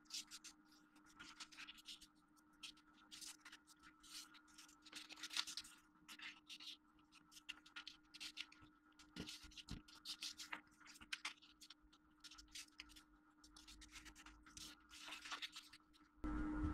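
Sheet of origami paper being folded and creased by hand: irregular scratchy rustles and fingers sliding along the folds. Music comes in near the end.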